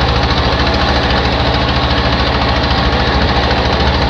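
Fishing boat's engine running steadily, with a fast, even pulsing beat.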